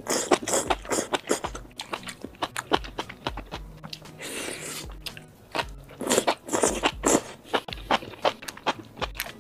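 Close-miked eating of enoki mushrooms soaked in red chili oil: slurping the strands off skewers and chewing, with many sharp wet clicks and a longer slurp about four seconds in.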